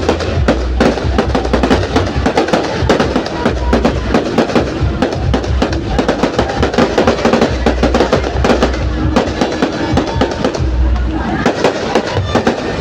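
Fireworks crackling and popping in a dense, rapid stream, over loud music with a heavy bass beat.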